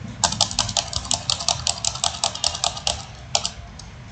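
A computer keyboard key tapped rapidly and evenly, about seven clicks a second for nearly three seconds, then two more taps. It is the Backspace key, pressed over and over to delete a run of spaces in a line of text.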